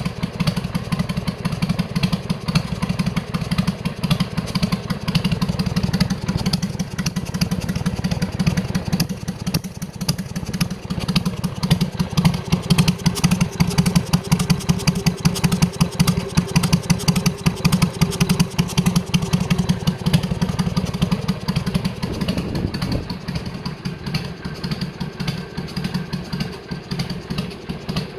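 Harley-Davidson Sportster 883R V-twin idling through a trumpet-style silencer. It makes the loping, uneven 'potato-potato' exhaust beat of a V-twin, steady throughout with a deep thumping pulse.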